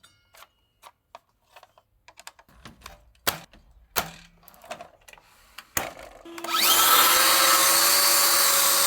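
A few clicks and knocks of handling, then about six seconds in the chop saw's motor starts, its whine rising quickly and settling into a loud, steady run.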